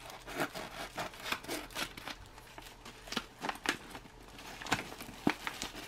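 A knife blade cutting through a laminated foil ration pouch, with irregular crackling and crinkling of the stiff foil as it is cut and pulled open.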